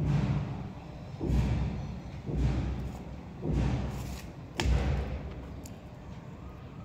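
A hand pressing balls of chhena (fresh cheese) dough flat onto a steel plate, each press a dull thud of the plate against the floor. There are five presses about a second apart, and the last one is sharper, with a click of metal.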